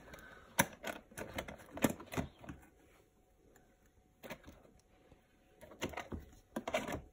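Thin clear plastic lid being handled and pressed onto a small plastic deli cup: a series of sharp plastic clicks and taps, in two clusters with a short quiet gap between.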